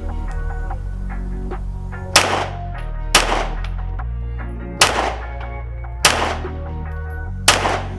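Five single shots from a 9mm Glock 19X pistol fitted in a CAA Micro Roni Gen 4 carbine conversion kit, fired semi-automatically one to one and a half seconds apart, each with a short echo. Background music with a bass line plays underneath.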